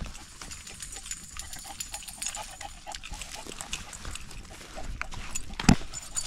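Shar-pei dogs and a person walking on a muddy trail: irregular footsteps and small ticks, with dog sounds, and one sharp knock about five and a half seconds in.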